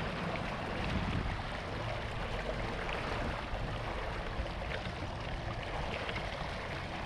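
Steady rush and lapping of choppy water against a jon boat's hull, with a few faint knocks.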